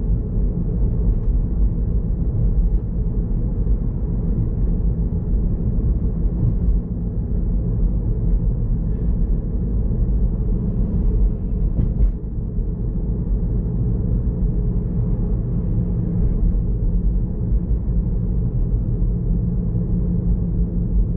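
Steady low road and tyre rumble inside the cabin of a moving Tesla Model 3, an electric car with no engine note. There is a brief click about twelve seconds in.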